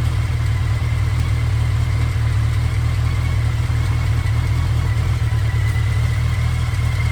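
Motorcycle engine running steadily with a low, even rumble and a faint steady whine above it.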